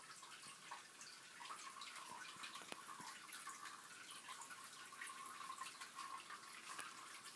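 Faint steady hiss with scattered light clicks and rustles, the handling noise of a handheld camera being panned.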